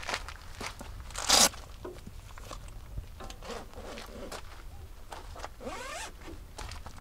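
A zipper pulled once in a quick loud zip about a second in, among lighter rustling and handling of gear, with a softer drawn-out sliding sound near the end.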